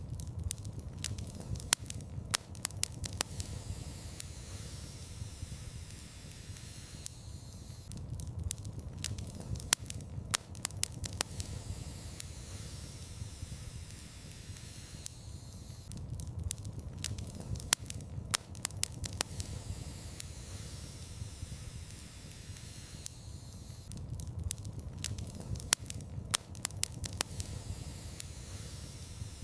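Wood fire in a fireplace crackling, with clusters of sharp pops over a low steady rumble and hiss. The same run of pops repeats about every eight seconds, as in a looped recording.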